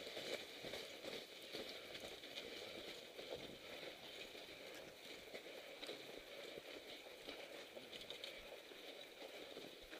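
Faint crunching footsteps in snow, an irregular run of small crunches as riders walk their mountain bikes up a snowy trail.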